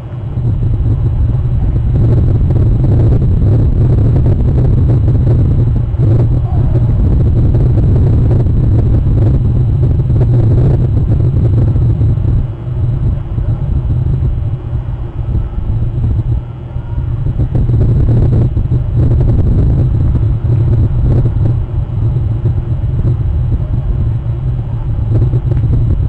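Loud low rumble on an outdoor webcam microphone. It comes up about half a second in, holds steady, and dips briefly twice around the middle.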